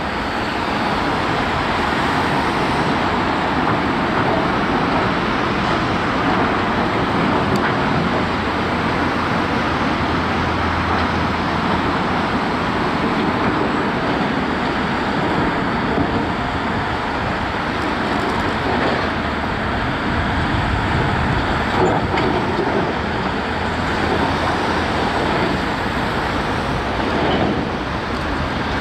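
Heavy construction machinery running steadily, with a few faint knocks.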